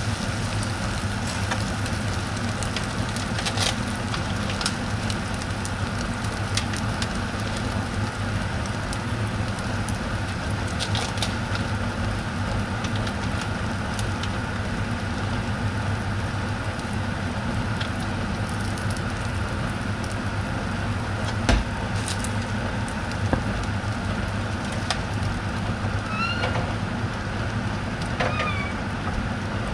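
Egg sizzling steadily in a frying pan over a constant low hum, with occasional clicks and taps from the spatula and handling, including one sharper tap about two-thirds of the way in. Near the end come two short squeaky sounds that rise and fall in pitch.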